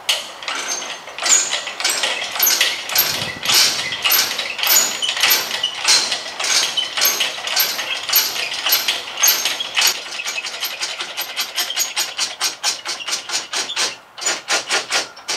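Hydraulic bottle jack on a car rotisserie pumped by hand to raise the mounting arm, giving a long run of sharp metallic clicks a few a second that quicken past the middle, with a short break near the end.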